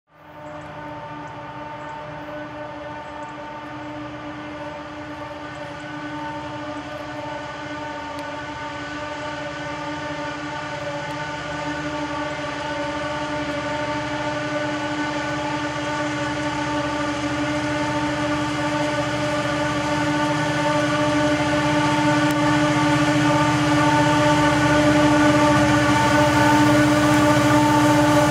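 Diesel-electric freight locomotives working uphill under load, approaching: a steady engine drone with a constant, unwavering whine on top that grows gradually louder as the train nears.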